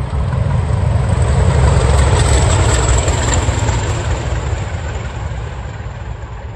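English Electric Class 20 diesel locomotives and a Class 50 passing on the line, a heavy low engine rumble with wheel and rail noise that builds to its loudest about two to three seconds in, then fades as the train moves away.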